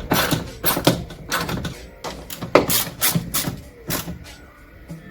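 Irregular clicks, knocks and short scrapes of hand work on a car door's lock mechanism as the door lock is refitted and screwed back in.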